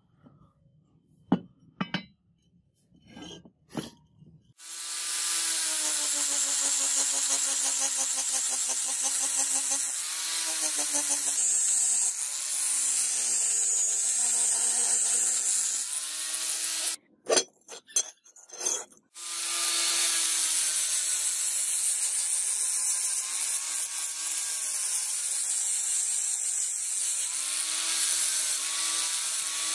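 Electric angle grinder with an abrasive disc grinding the edge of a rusted steel sword blade: a steady high whine with hiss, its pitch sagging whenever the disc is pressed into the steel. A few light knocks come before it starts. About midway it stops for two seconds, with more knocks, and then runs again.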